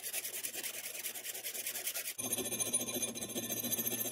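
Hand files rasping back and forth on a steel shuriken cut from table saw blade, clamped in a bench vise: even strokes of a round file in the curved edges. About two seconds in the sound changes abruptly to a thinner scraping as a needle file works the narrow cutouts.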